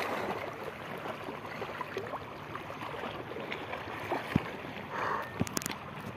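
Shallow seawater sloshing and lapping close by as an angler wades. A few sharp clicks come about four seconds in and again around five and a half seconds.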